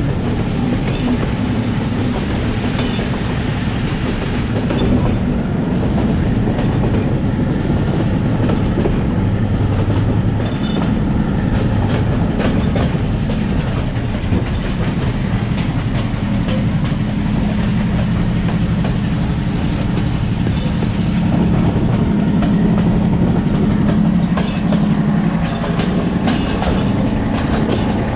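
Passenger train running along the track, heard from an open coach window: a steady rumble and rattle of the coaches, with repeated wheel clicks over the rails and a steady low drone underneath.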